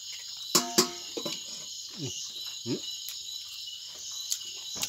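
Steady chorus of crickets trilling, with two sharp smacks from a person eating by hand about half a second in and a few brief vocal sounds later.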